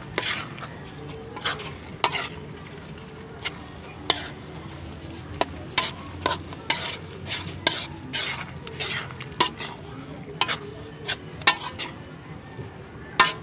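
A metal spoon scraping and knocking against a large aluminium wok as it stirs a thick, wet mix of taro leaves, dried anchovies and coconut milk, in irregular strokes about once or twice a second.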